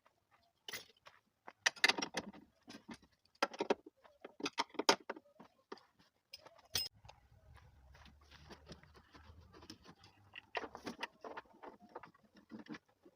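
Irregular metallic clinks and rattles of hand tools and bolts as a vertical-door hinge is tightened onto a car door, with a faint low hum in the middle.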